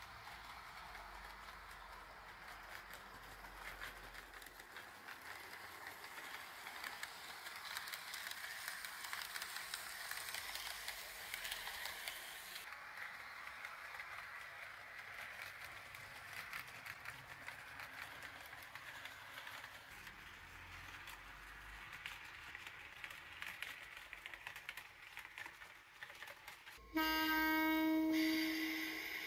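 HO-gauge model train, the Tenshodo KuMoRu 145 and KuRu 144 pair driven by a Power Truck motor bogie, running over the layout's track with a steady rushing of wheels and motor that swells and fades. Near the end a much louder steady horn-like tone sounds for about two seconds.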